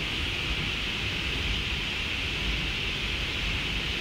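Steady cockpit noise inside a taxiing Boeing 777: an even hiss with a low rumble underneath.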